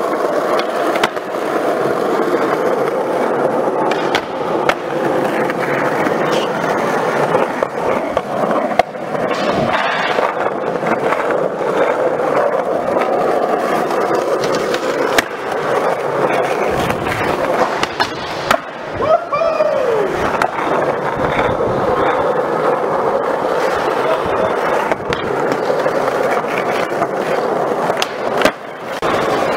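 Skateboard wheels rolling steadily over a smooth concrete skatepark floor, with sharp clacks now and then as boards are popped and land.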